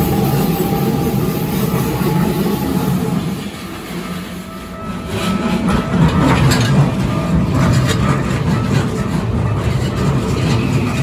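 Keikyu electric commuter train passing close by, a steady rumble with wheels clicking over the rail joints. The level dips briefly about four seconds in, then the clattering returns louder.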